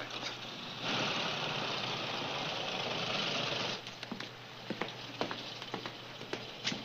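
Motorcycle engines running, then dropping away about four seconds in, followed by scattered light clicks and knocks.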